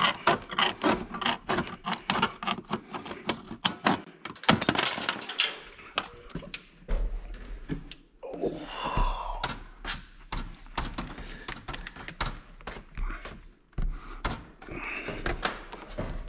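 Tin snips cutting steel roofing panel: a fast run of sharp metallic snips and clicks for the first several seconds. Then metal scraping and knocks as the stainless steel chimney pipe is handled and fitted.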